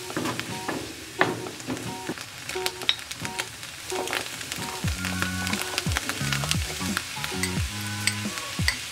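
Food sizzling in a nonstick frying pan while a wooden spatula stirs and scrapes, with small clicks and scrapes as shredded chicken, diced vegetables and rice are tipped in.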